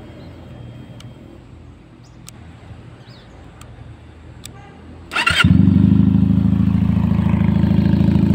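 Benelli TNT 250's inline two-cylinder engine is started about five seconds in: a brief crank, then it catches at once and idles steadily through an aftermarket 'helicopter' exhaust. Before that there are only a few faint clicks.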